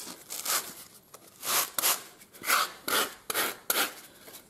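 A hand rasp's smooth face scraping back and forth over a black foam knee-roll block in short, uneven strokes, about two to three a second. This is the final smoothing pass that evens out the ridges on the knee roll.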